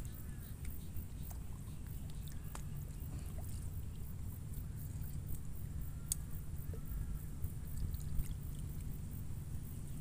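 Quiet lakeside ambience: a steady low rumble with a few faint, short clicks and soft water movement.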